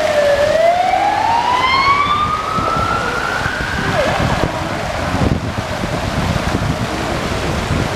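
Emergency vehicle siren in a slow wail: its pitch bottoms out just after the start and climbs steadily for about four seconds, then fades into steady background noise.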